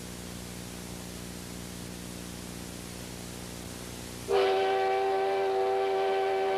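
A steady hiss with a faint low hum, then about four seconds in a steam locomotive's whistle starts, loud and held as a chord of several steady tones.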